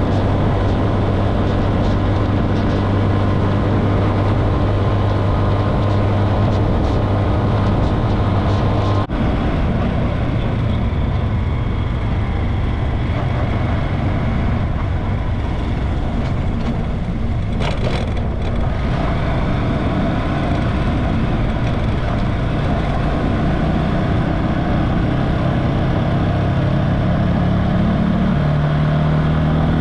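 Motorcycle engine running at road speed under heavy wind rush. The engine note changes abruptly about nine seconds in, runs lower for a while, then climbs in steps near the end as the bike accelerates.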